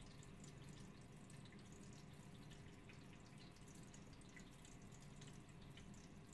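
Faint sound of a small 12-volt pump running as it fills a plastic vessel: a low steady hum with water trickling and dripping in.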